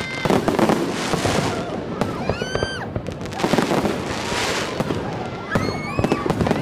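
Aerial fireworks shells bursting in a dense barrage: a rapid run of sharp bangs and crackling. Short high gliding sounds come about two seconds in and again near the end.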